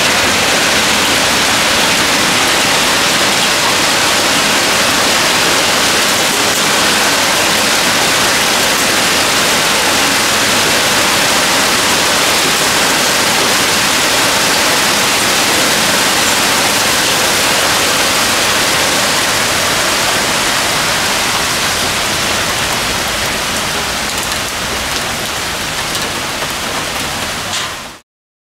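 Heavy downpour of rain beating on roofs, spruce branches and pavement: a steady, loud hiss that eases slightly near the end and then cuts off suddenly.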